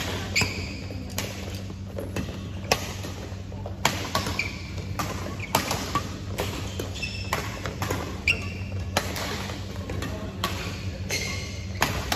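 Badminton rackets hitting the shuttlecock in a rally: sharp cracks at uneven spacing, about one or two a second. There are short sneaker squeaks on the court floor between them and a steady low hum underneath.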